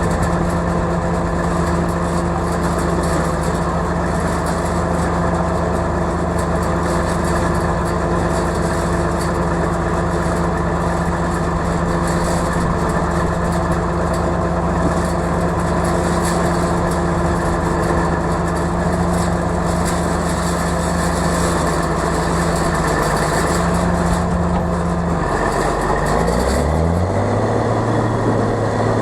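Tractor engine running steadily, then revving up to a higher steady speed near the end.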